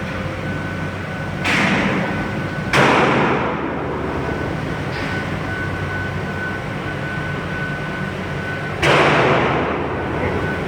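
Three pistol shots from a Glock 32 chambered in .357 SIG, spaced slowly: two about a second and a half apart, then a third several seconds later. Each is a sharp crack that rings out for about a second, over a steady hum with a thin high tone.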